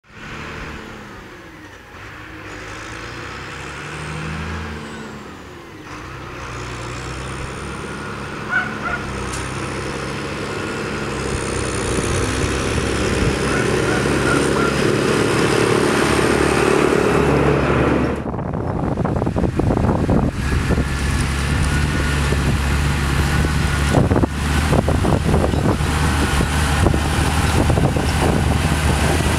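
Valtra 8550 tractor's diesel engine getting steadily louder as it pulls a trailer up the road toward the listener, the engine note rising and falling. About two-thirds of the way in it cuts to a Case CVX tractor's diesel engine running steadily under load while pulling a reversible plough, with scattered knocks.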